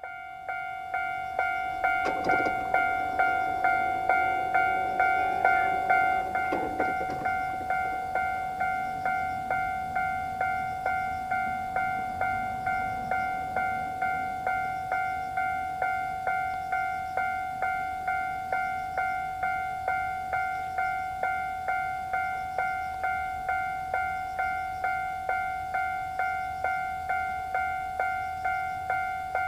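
Japanese railway level crossing's electronic warning bell ringing: a two-tone ding repeating about twice a second. A faint rising whine sits underneath in the first few seconds.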